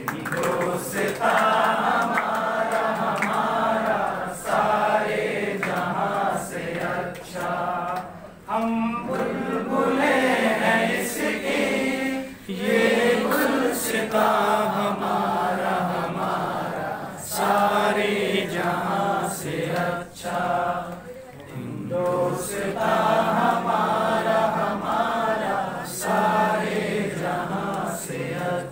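A crowd of people singing a Hindi song together in chorus, in phrases with short breaks between lines.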